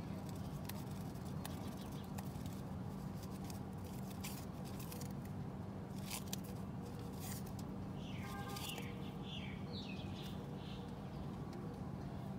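Steady low hum with scattered light clicks and scratches, and a short run of high bird chirps between about eight and eleven seconds in.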